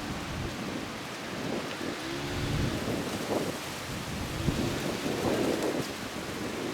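Water discharged from the side outlets of Tsujun Bridge, a stone arch aqueduct, gushing out and falling into the river below: a steady rushing noise.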